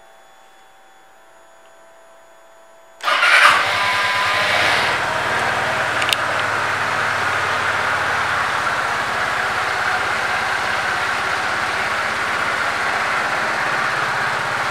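2020 Kymco Like 150i scooter's single-cylinder four-stroke engine starting about three seconds in, with a short loud burst as it catches. It then idles steadily.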